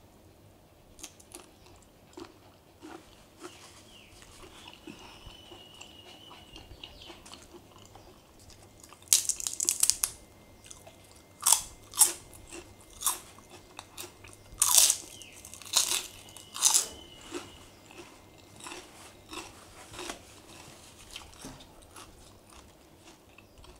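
A person biting and chewing crunchy food close to the microphone, with a run of loud crisp crunches through the middle and softer chewing either side.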